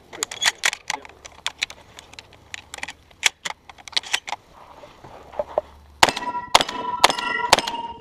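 Stoeger M3K 12-gauge semi-automatic shotgun firing a string of shots, fastest and loudest about six seconds in, with steel targets ringing after the hits near the end.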